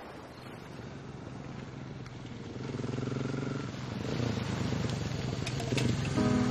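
Motorcycle engine running and approaching, getting steadily louder.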